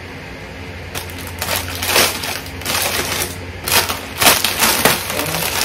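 Rustling and crinkling of clothing being handled, in irregular bursts that are loudest about two seconds in and again past four seconds, over a low steady hum.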